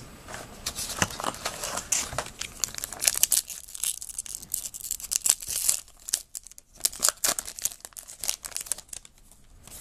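A baseball card pack's wrapper being torn open and crinkled by hand: irregular crackling rustles, dense in the middle and thinning out over the last few seconds.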